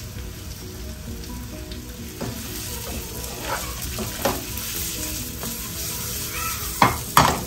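Sliced onions and imitation crab sticks sizzling in a non-stick frying pan, with a wooden spoon stirring and scraping through them a few times. Near the end come two sharp knocks as the pan is tossed.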